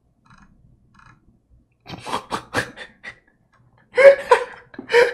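A man laughing: breathy snickers start about two seconds in, and louder bursts of laughter come near the end.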